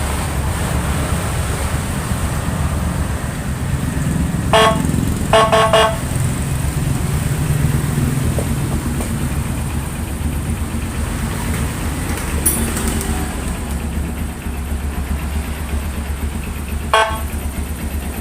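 Horn tone of a Whelen Alpha siren module sounding in short blasts: one about four and a half seconds in, two quick ones a second later, and one more near the end. A steady low rumble runs underneath.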